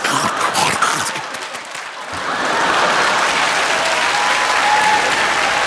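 Loud crunching and chomping mouth noises into a microphone, standing for eating a handful of snacks at once. About two seconds in they give way to steady studio audience applause.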